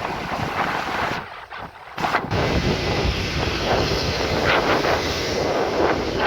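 GE CM20EMP (CC 206) diesel-electric locomotive engines running, with wind buffeting the microphone. The sound dips briefly about a second in, then comes back at full strength.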